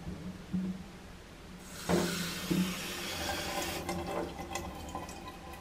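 Water running from a single-lever mixer tap into a stainless steel sink, starting about two seconds in and shut off by the lever about four seconds in, followed by a few small clicks and taps.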